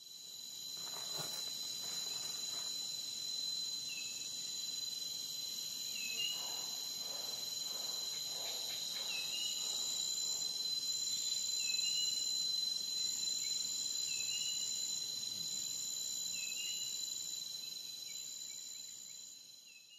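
Steady high-pitched trilling of insects, with a short rising chirp repeating every two to three seconds; it fades in at the start and fades out at the end.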